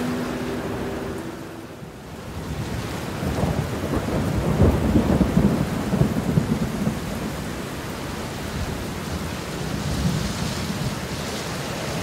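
Waterfall rushing: a steady roar of falling water, swelling with a deeper rumble from about three to seven seconds in.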